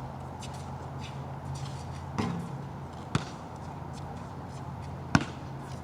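Basketball bouncing on a wet outdoor court: three sharp, irregularly spaced bangs over a steady background hiss.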